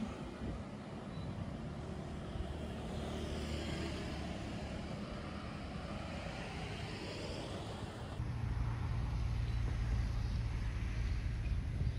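Road traffic passing close by, cars going past one after another. About eight seconds in the sound cuts abruptly to a louder, steadier low rumble of traffic.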